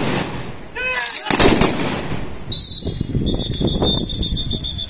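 Commando drill demonstration. About a second in, the squad gives a loud shout with a falling pitch, then dense crackling bursts follow. From about two and a half seconds a long, high, steady whistle blast sounds over quick stamping and ticking.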